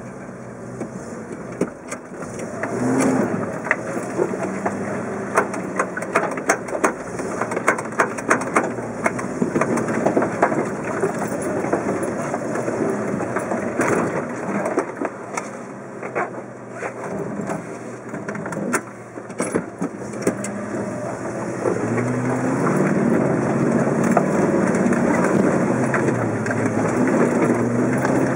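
V8 Nissan Patrol GQ's engine working at low revs as it crawls up a rocky off-road track, heard from inside the cab, with frequent clicks and knocks from rocks under the tyres. The engine gets louder and steadier for the last several seconds as it pulls harder.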